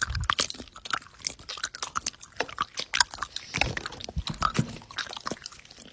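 A person chewing something crunchy close to the microphone, an irregular run of wet crunches and crackles several times a second.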